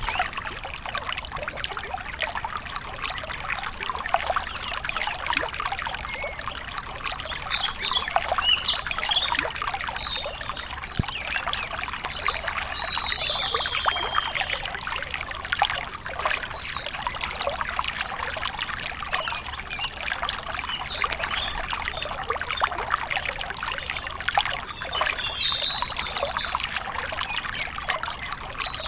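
A small forest stream trickling and splashing over rocks, a steady running-water sound. Birds call in short high chirps several times over it.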